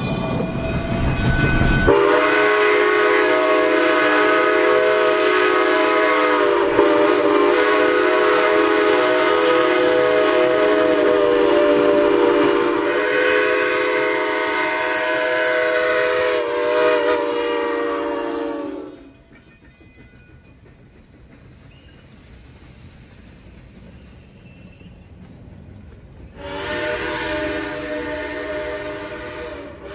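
Steam whistle of a K-28 2-8-2 narrow-gauge steam locomotive blowing a long chime chord for most of the first two-thirds. It then drops to quieter train running noise, and the whistle sounds again near the end.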